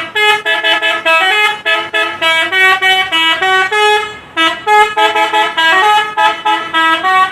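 A bus's 'telolet' multi-tone musical horn playing a fast melody of short, loud toots that jump from pitch to pitch, with a brief break about four seconds in.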